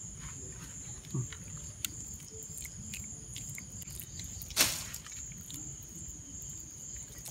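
Crickets trilling steadily at a high pitch, with faint wet squishing of hands rubbing masala paste into a pearl spot fish and one louder, sharp sound about four and a half seconds in.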